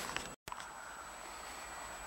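Faint, steady outdoor background noise with no passing train, cut by a brief total dropout about half a second in where two recordings are spliced together.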